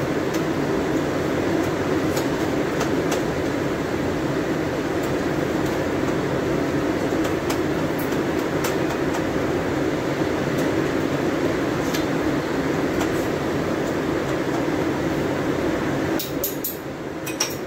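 A steady rushing noise, dipping briefly near the end, with scattered light clicks of a spoon against a frying pan as the sauce is stirred.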